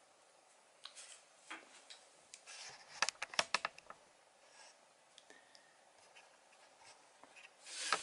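Pencil marking a board against a ruler: faint scratches and light taps, with a quick run of sharp clicks about three seconds in and a louder rub near the end.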